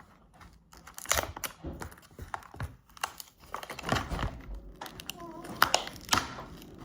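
Plastic packaging wrapper crinkling and crackling as it is pulled and twisted to tear it open, in irregular snaps and rustles.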